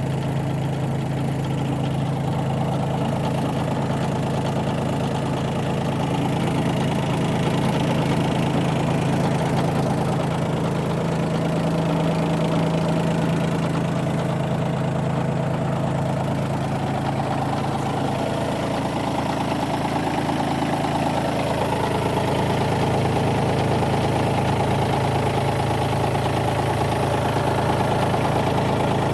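Bobcat B250 compact loader backhoe's diesel engine idling steadily.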